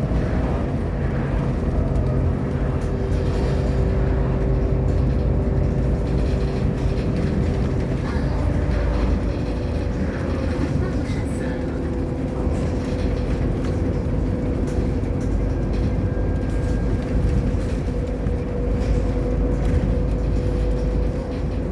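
An Irisbus Agora L articulated city bus under way, heard from inside: its diesel engine and drivetrain run with a steady low drone and a held whine, over road noise.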